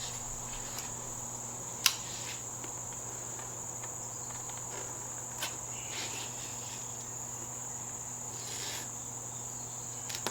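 A steady high-pitched trill over a low hum, with a sharp click about two seconds in and a few faint short rustling snips later, as padding on the motorcycle is cut away by hand.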